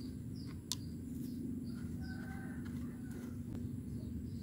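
A sharp click from the pliers on the engine's oil filler cap as it is twisted loose, then a few faint ticks, over a steady low hum. Birds chirp in the background.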